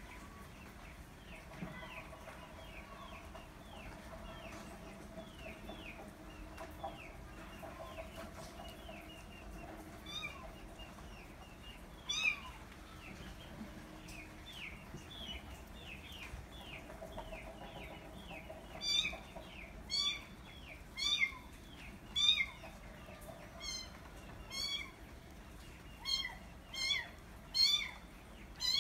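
Chicks peeping rapidly in quick, thin, falling chirps. A kitten mews a couple of times about a third of the way in, then repeatedly, about once a second, through the last third, louder than the peeping.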